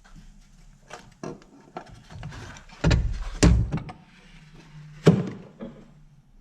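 Clunks and knocks of a cylinder head cover being pried loose and lifted off a Mercedes OM611 diesel engine: a few light taps, then heavy clunks about three seconds in and another sharp knock about five seconds in.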